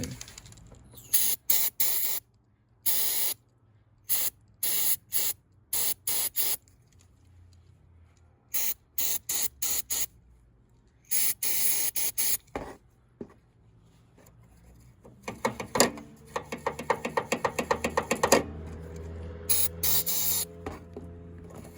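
Aerosol cleaner spray can sprayed in many short hissing bursts, in clusters, onto a car's hood latch switch terminals to clean them. About fifteen seconds in there is a fast, even run of short strokes lasting about three seconds.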